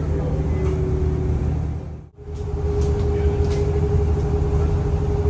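Passenger boat's engine running with a steady low drone and a steady hum above it. The sound drops out briefly about two seconds in, then resumes unchanged.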